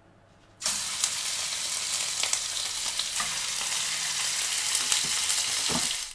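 Raw steak sizzling in a hot frying pan. The sizzle starts suddenly about half a second in as the meat goes into the pan, holds steady, and cuts off just before the end.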